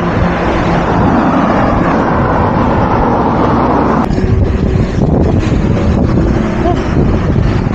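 Wind rushing over an action camera's microphone on a moving bicycle, mixed with the noise of car traffic passing on the road. The sound changes abruptly about four seconds in.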